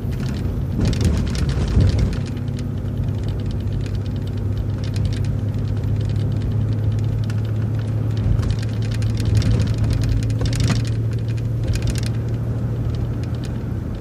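Transit bus engine running steadily as the bus drives along, heard from inside the cabin, with body rattles and clicks over the engine hum.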